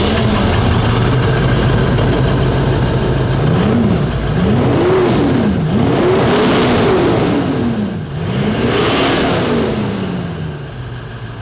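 A car's diesel engine, just started and idling on its original exhaust, is revved four times. Each rev rises and falls in pitch, the later ones longer and higher, and it settles back to idle near the end.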